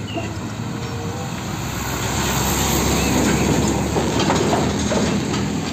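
Isuzu fuel tanker truck's diesel engine running as it drives past close by, with tyre and road noise. It grows louder as the truck nears, peaking around the middle, then eases slightly.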